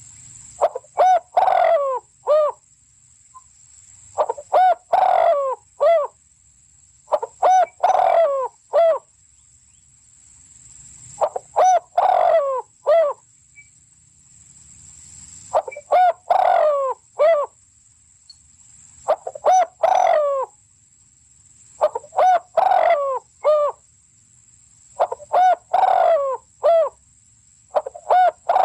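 A bird calling in a fixed phrase of several short, ringing notes, the phrase repeated about every three to four seconds. A steady faint high whine runs underneath.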